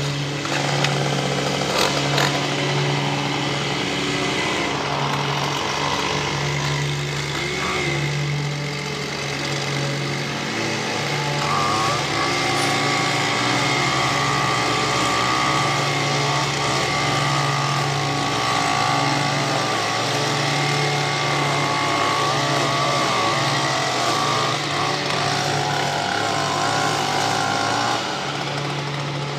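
Small gas lawn-equipment engine running continuously, its pitch wavering up and down as the throttle varies.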